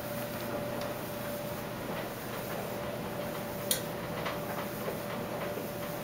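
Speed Queen commercial washing machine running with a steady hum, with scattered light ticks and rattles and one sharp click a little over halfway through.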